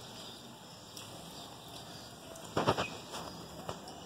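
Steady faint hiss of light rain with water dripping from a roof drain pipe, and a short louder burst of noise about two and a half seconds in, followed by a few small ticks.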